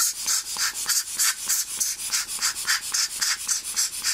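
Orange rubber hand air blower squeezed rapidly into a camera lens barrel, sending quick hissing puffs of air, several a second, to blow out dust.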